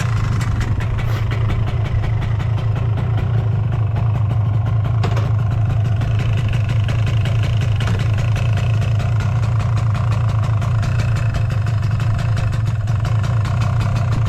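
1987 Yamaha SDR200's single-cylinder two-stroke engine idling steadily. The seller presents it as running with no abnormal noise.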